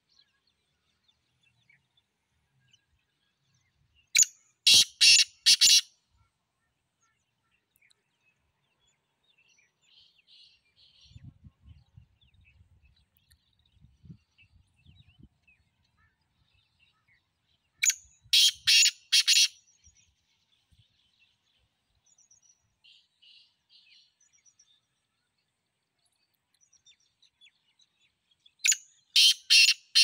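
Black francolin calling three times, each call a quick run of four or five loud, short notes, the calls coming roughly ten to fourteen seconds apart.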